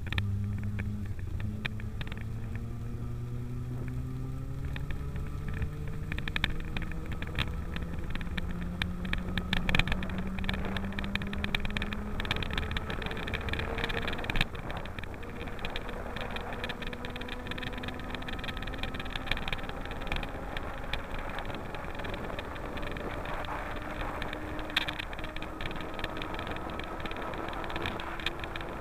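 Heard from on board a Greenpower battery-electric race car: the electric drive's whine climbs steadily in pitch as the car gathers speed, then climbs again after a brief drop about halfway. Underneath run a steady rush of tyres on wet tarmac and many small clicks and rattles.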